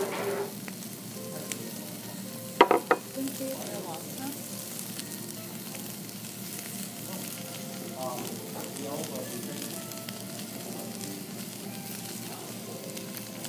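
A flambéed sushi roll sizzling and crackling steadily on a metal platter as it burns. A few sharp clicks come close together about two and a half seconds in.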